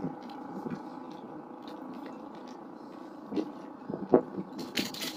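Fishing net being hauled in by hand over the side of a small boat, over a steady low background, with a sharp knock about four seconds in and a short noisy burst near the end.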